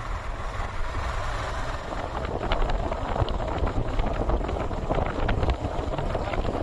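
Motorcycle engine running on the move, a steady low rumble, with wind buffeting the microphone.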